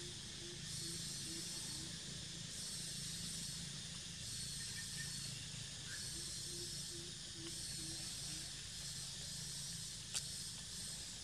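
Forest ambience: a steady high insect drone that swells and drops every second or two, over a low steady hum, with one sharp click near the end.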